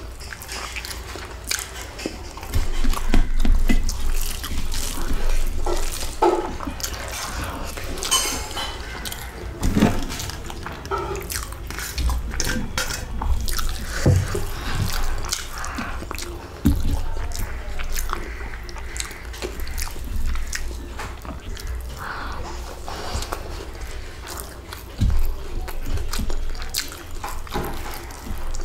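Close-up wet eating sounds: chewing and lip smacking on mouthfuls of rice and fish curry, with fingers squishing and mixing the rice on a stainless steel plate, in many irregular small clicks and squelches.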